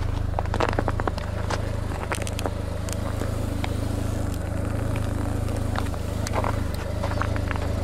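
A car engine idling with a steady low hum, with scattered sharp clicks and crackles over it.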